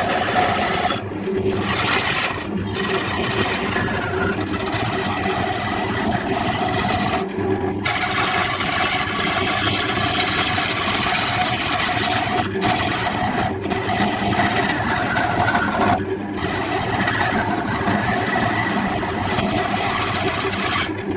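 Wood lathe running while a turning gouge cuts into a spinning log: a steady, rough cutting noise over the lathe's hum, with a few brief breaks.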